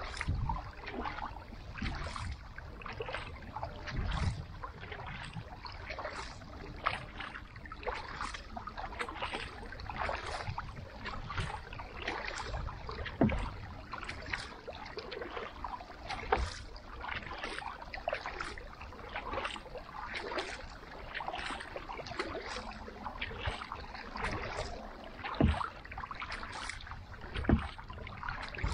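TNP Wolverine carbon kayak paddle stroking through lake water, with splashes and drips about once or twice a second and now and then a low knock.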